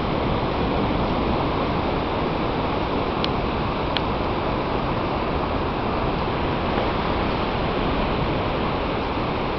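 Steady, even rushing noise with no change in level, with two faint ticks about three and four seconds in.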